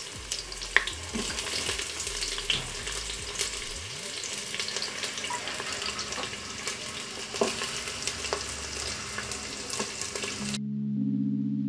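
Sliced onions and whole spices sizzling and crackling in hot oil in the stainless steel inner pot of a Geek Robocook electric pressure cooker, with scattered sharp pops. Near the end the sizzle cuts off abruptly and background music takes over.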